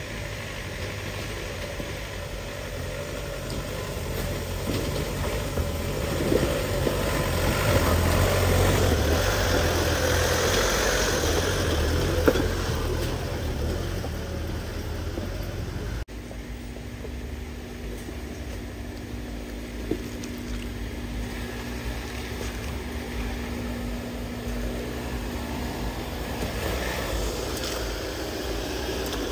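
Off-road 4x4 vehicle engine running, swelling louder for a few seconds and then easing back. About halfway through the sound changes abruptly to a steadier engine run with a faint steady whine.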